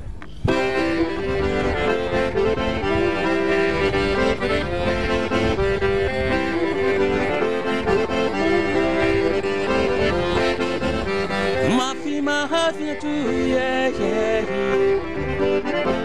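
Fratelli Crosio accordion playing a melody over sustained chords, starting about half a second in.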